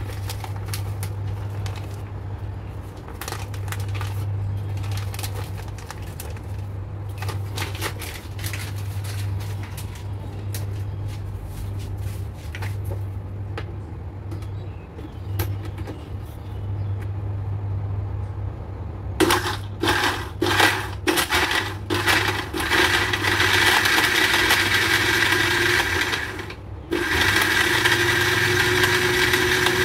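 A glass-jar countertop blender being loaded, with knocks and clinks over a steady low hum. About two-thirds of the way in the blender motor is pulsed several times. It then runs continuously at a steady pitch, stopping for a moment once before running on.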